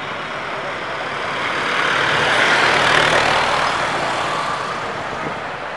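City street traffic, with a passing motor vehicle's noise swelling to a peak about three seconds in and then fading.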